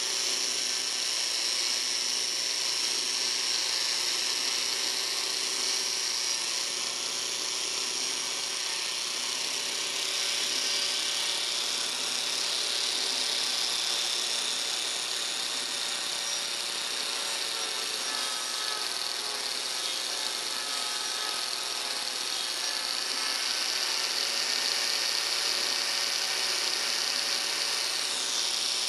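Angle grinder fitted with a Graff Speedcutter carbide-toothed wheel running steadily under load, cutting along a wooden spoke blank on a duplicating lathe: a constant high whine with the rasp of the teeth shaving the wood.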